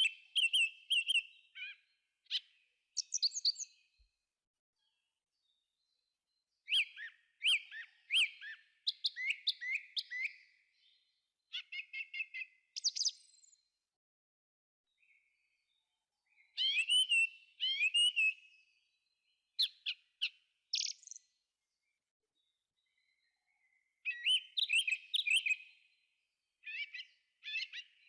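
A thrush singing: short phrases of clear, high whistled notes, often quickly repeated, separated by pauses of a second or more.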